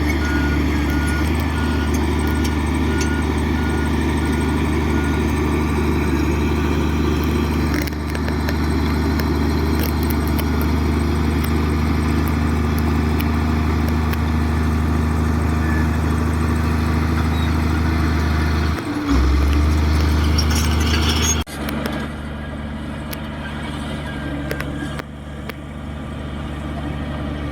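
Heavy diesel earthmoving machinery engine running steadily under work, with a deep low hum. A repeated high beep sounds over the first five seconds. The engine surges louder for a couple of seconds and then drops abruptly to a quieter, steady run near the end.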